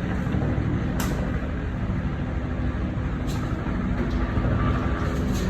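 Helicopter in flight heard from the cabin: a loud, steady engine and rotor rumble with a constant low hum and a couple of faint clicks.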